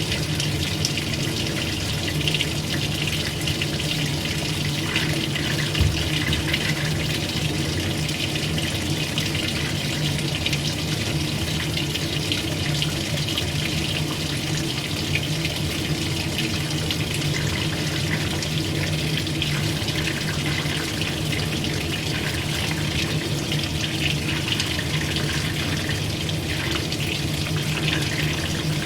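Old-style washing machine running with water churning, a steady low hum under the water noise.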